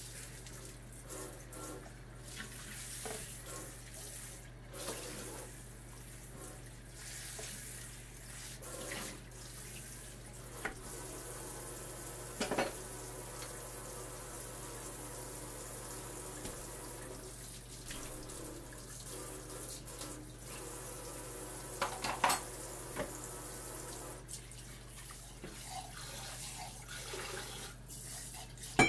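Kitchen tap running steadily into a sink, with a few clinks of dishes, two of them louder near the middle and about two-thirds of the way through.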